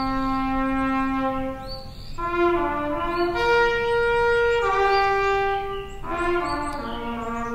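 Slow instrumental hymn music with a brass sound: long held notes, several sounding together, moving in unhurried phrases with a short break about two seconds in and again about six seconds in.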